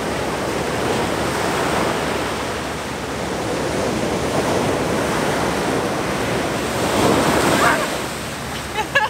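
Ocean surf breaking and washing up onto a sandy beach, a steady rush of foam, with a bigger wave breaking and swelling louder about seven seconds in.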